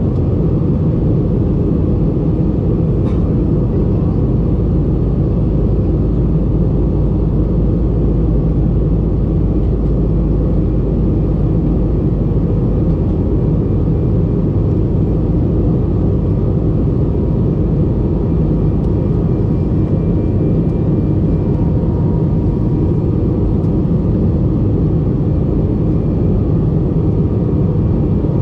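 Steady, low rumble of an Airbus A320 in flight, heard inside the passenger cabin near the wing: engine and airflow noise.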